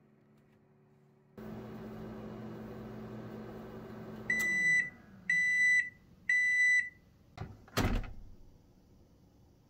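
Microwave oven heating at 600 W with a steady hum that winds down as the timer runs out, then three beeps marking the end of the cycle. Then a click and a clunk as its door is opened.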